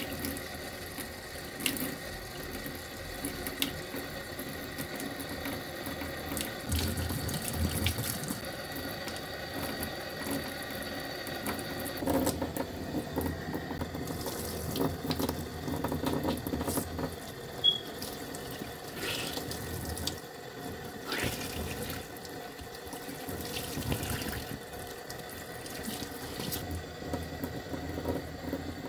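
Tap water running steadily into a stainless steel sink, splashing over hands as makeup brushes and a makeup sponge are rinsed and squeezed under the stream.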